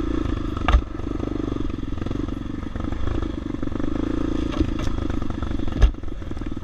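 Honda XR650R's single-cylinder four-stroke engine running steadily at trail speed, with two sharp knocks, one about a second in and one near the end.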